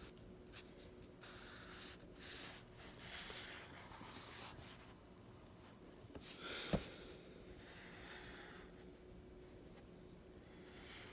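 Faint scratching strokes of a drawing tool on paper, coming in uneven runs of half a second to a second, with one sharp tap a little past the middle.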